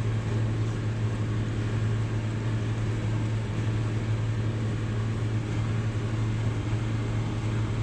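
Tractor engine running steadily at a constant pitch while mowing grass, a continuous low drone with the mower working.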